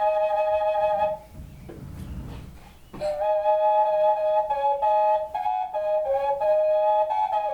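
Flute playing slow, long held notes, two notes sounding together. It stops about a second in for a quieter breath-like pause, then comes back in about three seconds in, stepping slowly between notes.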